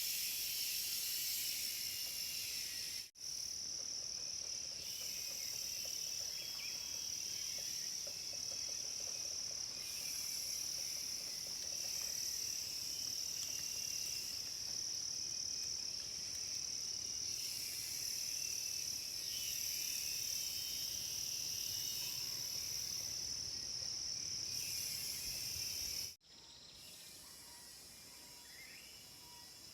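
Cicadas droning steadily in one high pitch, with faint bird calls. The sound drops out for an instant about three seconds in. Near the end it cuts off abruptly, and quieter forest sound with a few faint bird chirps follows.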